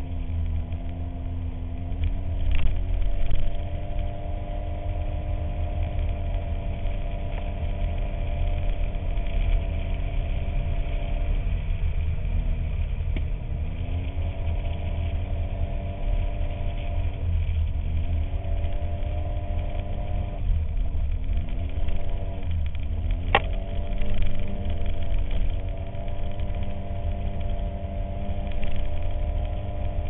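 Polaris RZR 800's twin-cylinder engine running under way, its pitch dropping and climbing back several times in the second half as the throttle is eased off and reapplied, over a heavy low rumble. A single sharp knock comes about two-thirds of the way through.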